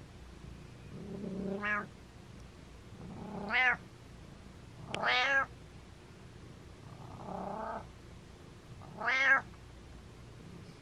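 An orange-and-white domestic cat meowing five times, a call every couple of seconds, each rising and falling in pitch; the fourth meow is softer and lower than the others.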